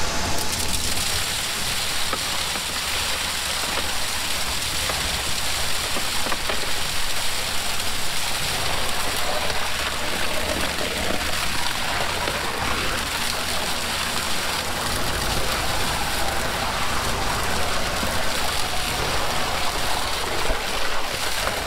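Wet ready-mix concrete gushing and splattering out of a concrete pump truck's hose into a rebar-caged column footer, a steady rushing sound. The pump truck's engine runs underneath as a low hum that grows stronger in the last few seconds.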